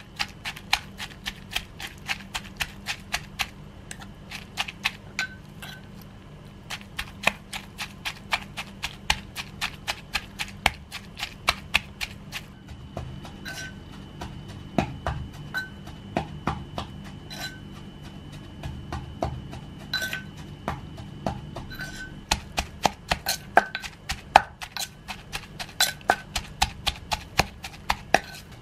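Wooden pestle pounding in a Thai clay mortar, working chilies and fish into a paste, in steady knocks about three a second. A metal spoon turning the paste clinks against the mortar now and then between strokes.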